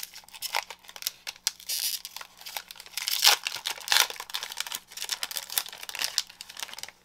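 Trading-card pack wrapper being torn open and crinkled: a dense, irregular run of crackles and rips, loudest a little over three seconds in.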